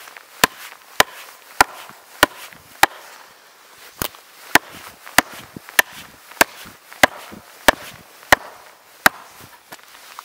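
Hultafors axe chopping into a log on the ground: about fifteen sharp, evenly paced strikes, roughly one every two-thirds of a second, with a short pause about three seconds in. The chopping stops about a second before the end.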